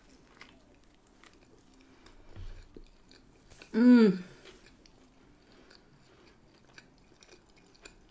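A person biting into and chewing a McDonald's triple cheeseburger, with faint wet mouth clicks throughout and a soft low thump about two and a half seconds in. About four seconds in comes one loud, pleased "mmm" hum with the mouth full.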